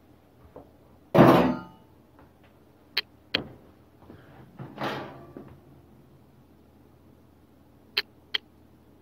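Toaster oven's mechanical timer bell giving one ringing ding about a second in, which marks the end of the toasting time. Then come a few clicks and a clatter as the oven door is opened, and two light clicks near the end.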